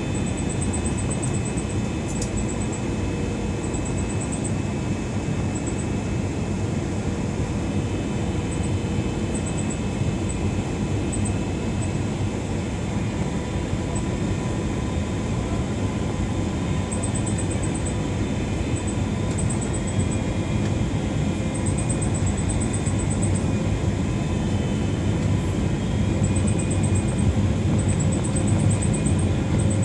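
Steady cabin noise of a Boeing 777-300ER airliner on its landing approach, the rush of airflow and the GE90 engines heard from inside the cabin, growing a little louder near the end. Faint high ticking comes and goes in short runs.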